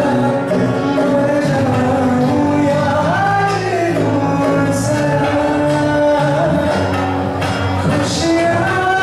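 Live band performance: a male voice singing long, gliding notes over acoustic guitar, bass guitar, tabla and synth.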